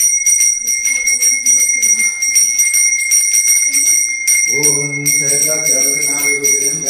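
Hand-held puja bell rung continuously while the ringer walks, a fast, steady ringing with a clear high metallic tone. A low voice, like chanting, comes in underneath about four and a half seconds in.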